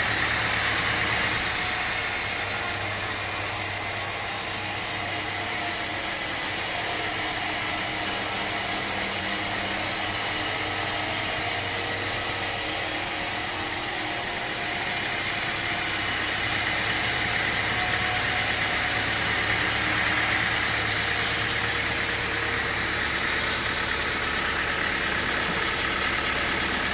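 Sawmill machinery running steadily, an engine or motor hum with a hiss above it; no distinct cuts or impacts stand out.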